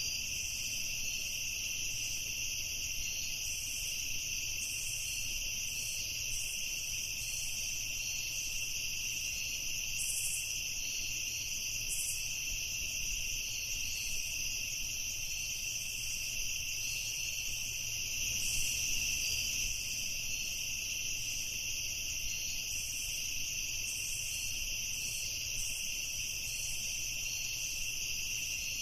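Night insects, likely crickets, trilling steadily in a continuous high-pitched chorus, with irregular short chirps higher up over a faint low rumble.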